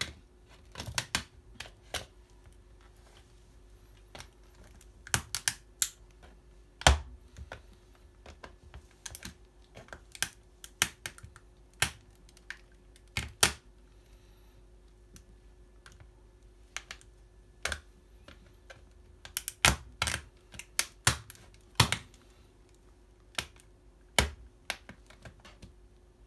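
Track spike shoes stepping on a plastic pocket calculator: irregular sharp clicks and taps as the metal spike pins and soles press on its case and keys, a few of them much louder than the rest.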